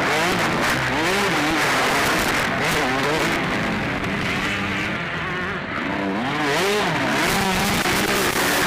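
Motocross bikes racing, several engines revving up and down over and over as they accelerate and shift, under a loud rough hiss.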